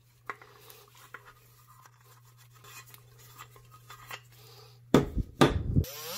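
Light clicks and scratches as a small tin oiler can and its chained cap are handled. About five seconds in there are a few loud knocks. At the very end a handheld rotary tool spins up.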